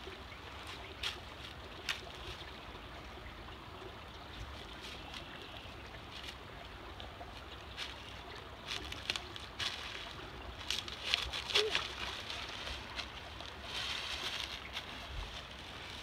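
Footsteps crunching and rustling through dry fallen leaves, in scattered crackles with a busier run of crunches a little past the middle, over a faint low rumble.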